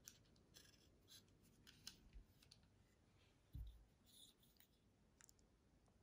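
Faint small clicks and light scraping of hands handling a 1/72 die-cast F-4N Phantom II model while fitting its centerline drop tank, with a soft low thump about three and a half seconds in.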